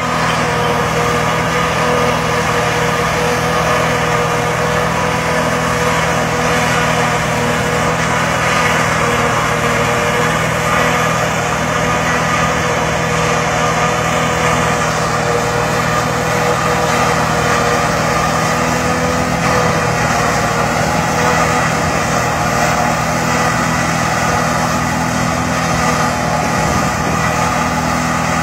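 Deutz-Fahr Agrolux 80 tractor running under steady load, driving a JF forage harvester that is chopping standing maize and blowing it into a trailer. A continuous, even drone of engine and harvester machinery with a few held steady tones.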